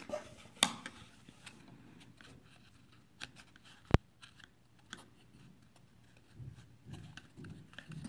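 Light wooden clicks and taps as the parts of a wooden folding knife kit, including its small wooden scissors, are handled, with one sharp knock just before four seconds in and a soft rustle near the end.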